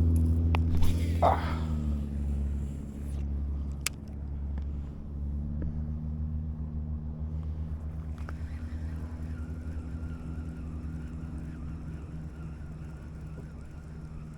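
A motor's low, steady rumble that fades gradually as it moves away, with a few sharp clicks near the start and around four seconds in.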